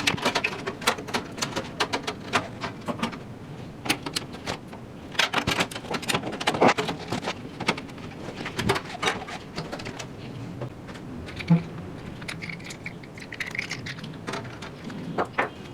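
Irregular clicks, taps and knocks of metal and plastic computer parts and screws being handled and fitted into a PC case.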